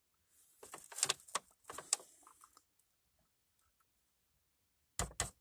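Handling noise: a scatter of light clicks and knocks for the first couple of seconds, then two sharper knocks near the end, as plastic model car bodies are moved and set down on a table.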